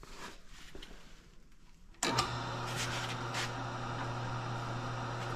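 A vertical milling machine's spindle motor switches on about two seconds in and runs with a steady hum, after faint handling sounds at the vise.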